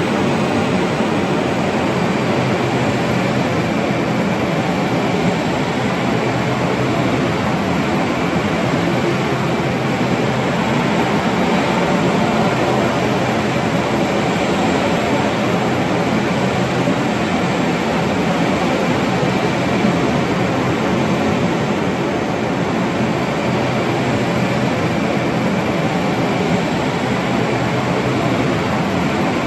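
Airport tarmac ambience: steady aircraft jet engine noise at a constant loud level, with a faint high whine running through it.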